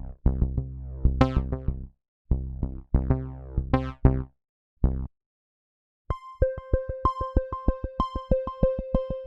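Synthesizer music from the AIR Transfuser 2 software instrument: short, dense musical phrases that stop dead with silent gaps between them, then about six seconds in a new preset starts a fast, even repeating pluck pattern on one high note, about three or four notes a second.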